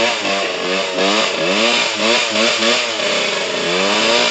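Trail motorcycle engine revved in quick repeated throttle blips, its pitch swinging up and down a few times a second, then one longer climb in revs near the end.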